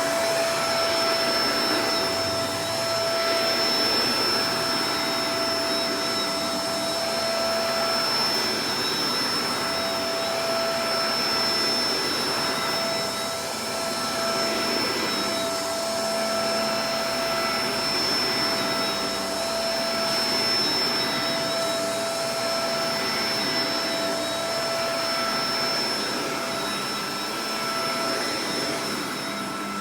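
Shark Professional Powered Lift-Away DLX (NV586) vacuum cleaner running: a steady rush of air with a constant high motor whine, the level dipping slightly now and then.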